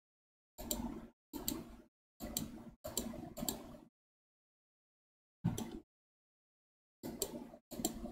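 A string of about eight short clicking bursts from computer input at a desk, each cut off abruptly into dead silence, with a pause of over a second in the middle.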